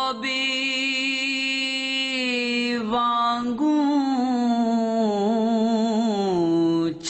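A solo voice chanting in two long held notes with a wavering vibrato, a short breath between them about three seconds in. The second note starts higher and slides gradually down near the end.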